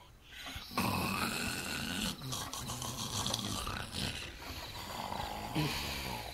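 Exaggerated comic snoring, the performed snore of the Yoda character, starting about a second in and going on in long drawn-out breaths.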